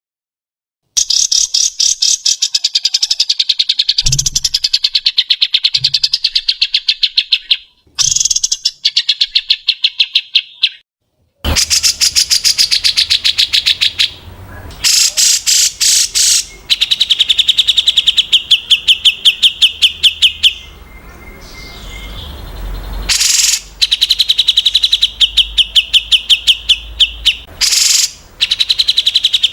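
Songbird song for bird training: long strings of rapid, sharp repeated notes in quick volleys, broken by a few short pauses and joins between recordings.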